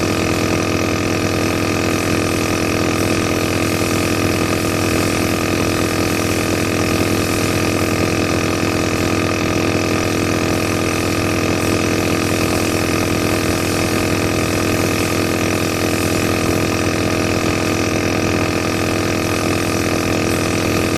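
Vintage compressor nebulizer (an 'aerosol' inhaler machine) running: its small electric piston compressor gives a steady, even hum.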